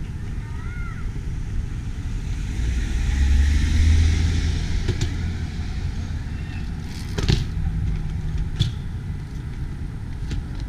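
Car engine and road noise while driving, a steady low rumble that swells louder about three to four seconds in. A few sharp clicks come through in the second half, the clearest about seven seconds in.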